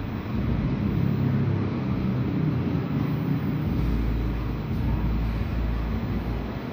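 Steady rumble of a running train, with low wind buffeting on the microphone from about four seconds in.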